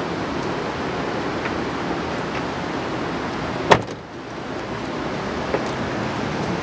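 A car door being handled, with one sharp thump of the door a little past halfway, over steady outdoor background noise.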